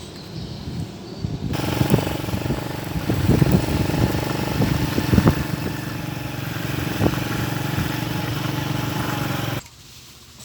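A small engine running steadily at an even pitch, with a few knocks. It cuts in suddenly about a second and a half in and cuts out suddenly near the end.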